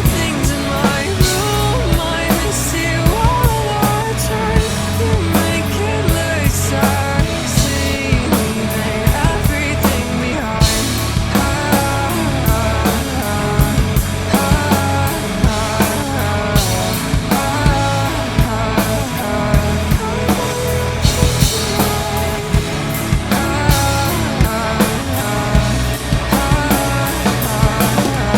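A rock drum kit played along to a recorded rock song with guitar and some singing: a driving beat with repeated cymbal crashes.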